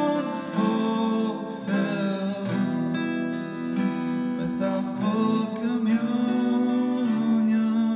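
Church music: acoustic guitar strummed, with a voice singing.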